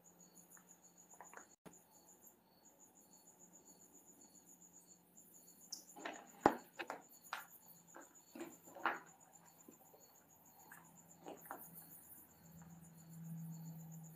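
Crickets chirping steadily in a fast, even pulse, faint and high-pitched. About halfway through, a short run of sharp knocks and crunches breaks in, a few more coming near the end.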